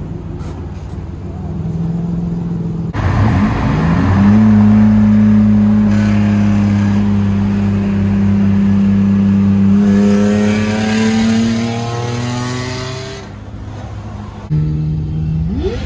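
Car engine heard from inside the cabin at highway speed. It climbs quickly to high revs, holds one steady pitch for about eight seconds with higher tones rising near the end, then eases off. It is preceded by a few seconds of a lower engine hum.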